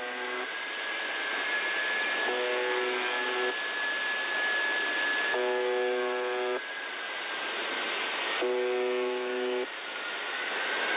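Shortwave radio reception of The Buzzer (UVB-76) on 4625 kHz in upper-sideband mode: a rough buzz tone about a second long repeats about every three seconds over steady receiver hiss. A thin high whistle runs underneath and slides in pitch near the end.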